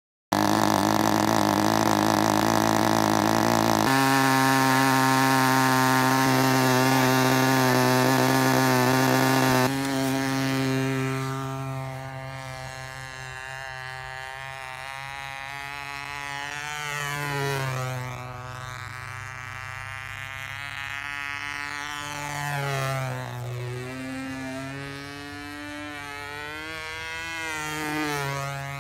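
Radio-controlled model airplane's engine and propeller running steadily at high throttle on the ground, going up a little in pitch about four seconds in. About ten seconds in the plane takes off and the sound drops away, then it swells and falls in pitch three times as the plane makes passes over the field.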